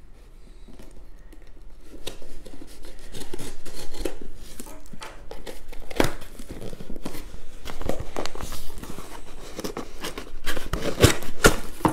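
A small cardboard shipping box being cut and forced open: a box-cutter blade scraping through tape and cardboard, and cardboard tearing and crinkling, in a run of irregular scrapes and clicks with a few sharper knocks about six seconds in and near the end.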